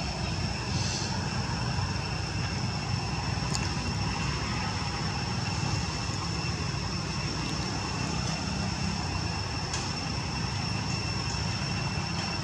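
Steady outdoor background noise: a low rumble with a thin, steady high-pitched whine above it, and a few faint clicks.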